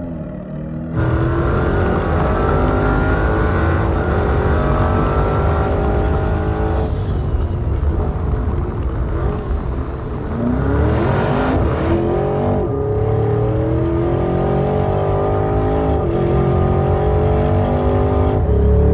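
Porsche Cayenne Turbo GT's 4.0-litre twin-turbo V8 accelerating hard. Its pitch climbs in long pulls and drops back several times as it shifts up.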